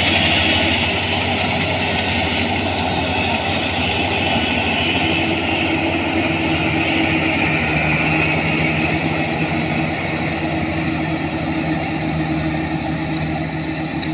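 Kubota combine harvester running steadily: a diesel engine note with a dense mechanical whir riding high above it. A new steady tone joins the engine note about five seconds in.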